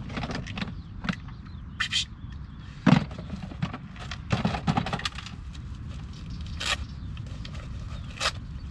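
Tools and gear being handled and packed into a plastic toolbox: scattered clacks, knocks and rustles of hard plastic and metal objects, the loudest knock about three seconds in.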